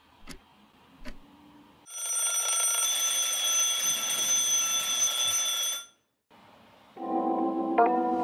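Twin-bell alarm clock ringing steadily for about four seconds, then cut off abruptly. A few faint clicks come before it, and music begins about a second before the end.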